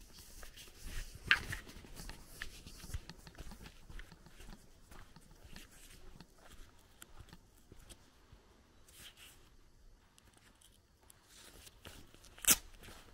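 Footsteps crunching on a dirt track at a slow walk, with two sharp clicks, one about a second in and a louder one near the end.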